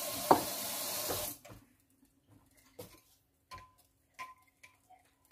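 Tap water running, shut off suddenly about a second and a half in. Then a metal spoon clinks lightly against a glass bowl of sauce a few times as it is stirred.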